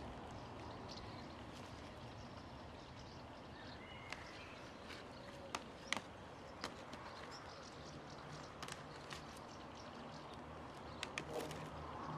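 Scattered light clicks and taps of wire mesh being handled and fastened by hand against a reed-mat wall, over a faint outdoor background.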